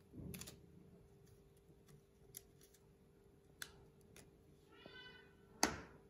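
Faint handling of paper and a glue stick: a brief rustle at the start, a few light clicks, and a sharp knock shortly before the end. About five seconds in, a short high-pitched animal call is heard.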